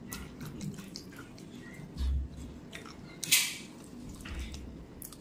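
Close, wet eating sounds of a person eating rice and curry by hand: chewing, lip and tongue clicks, and the squish of rice pressed on a metal plate. There is a dull low thump about two seconds in and a louder brief wet sound just after three seconds.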